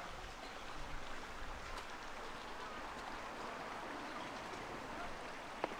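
Steady outdoor ambience: an even wash of noise with faint, distant voices of people around. One short sharp click comes near the end.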